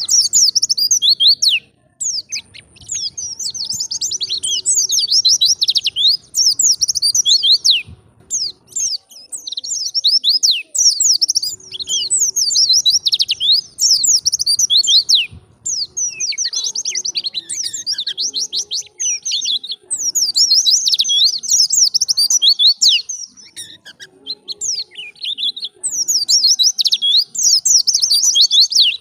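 White-eye (pleci) singing gacor style: long, fast twittering phrases of many quick, high, down-slurred notes, broken by short pauses every several seconds.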